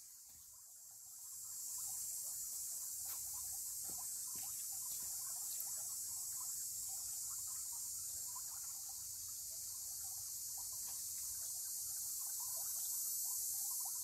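Steady high-pitched chorus of insects, fading in over the first two seconds, over faint irregular pattering of water rippling in a spring-fed pond.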